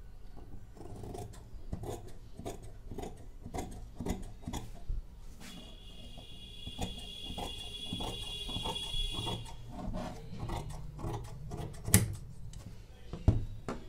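Large tailoring scissors cutting through folded fabric on a table, a run of repeated short snips as the blades close, with two sharp clicks near the end.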